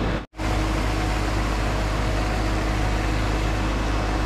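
Pond aerator running: a steady motor hum over churning, rushing water. The sound drops out for an instant shortly after the start.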